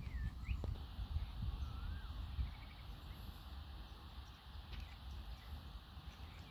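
Open-air ambience: a steady low rumble with a few faint bird calls, one short rising-and-falling call about two seconds in.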